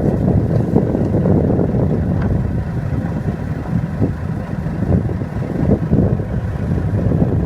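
Heavy diesel machinery running during excavator loading of dump trucks: a steady low engine rumble with strong wind buffeting the microphone.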